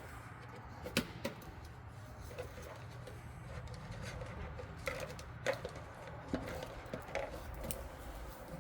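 Scattered light clicks and knocks of small objects being handled and set down, over a faint low steady hum.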